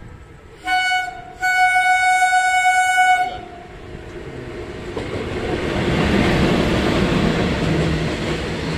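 Electric locomotive's horn sounding one short blast and then a long one of about two seconds as it approaches on the adjacent track. Then its freight train of covered wagons passes close by with a steadily building rumble and clatter of wheels.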